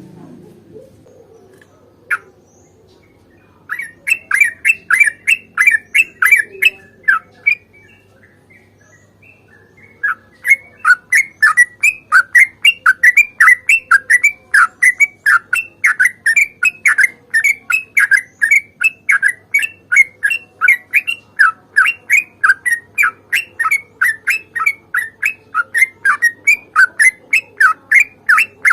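Yellow-vented bulbul (trucukan) singing its long rolling song: a short run of quick, falling chirps, a pause of a couple of seconds, then an unbroken string of the same chirps at about three a second, the drawn-out 'ropel panjang' phrase used as a lure call.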